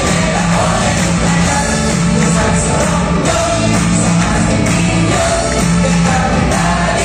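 Live rock band playing a song, with electric guitars, keyboards and a drum kit, heard loud from among the audience in a concert hall.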